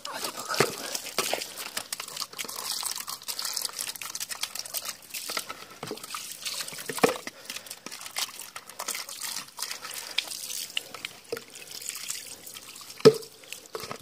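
Wet falling snow pattering and dripping: a dense run of small wet ticks over a hiss, with a few louder knocks about half a second, seven and thirteen seconds in.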